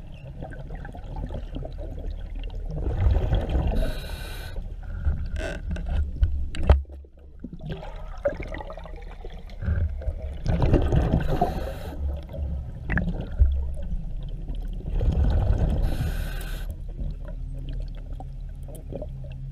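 A scuba diver breathing through a regulator underwater: a hiss on each breath in and a rush of bubbles on each breath out, about every six seconds. One sharp knock about a third of the way in.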